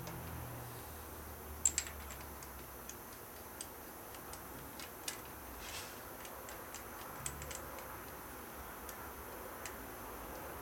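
Light, irregular clicks and taps of hands working on a motorcycle engine's spark plugs and plug wires, with a sharp double click just before two seconds in. The engine is an S&S 88ci Evo V-twin.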